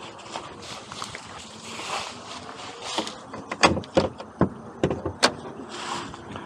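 Footsteps crunching through dry fallen leaves, then, from about three and a half seconds in, a run of sharp clicks and knocks as a Ford Bronco's hood latch is released and the hood is lifted open.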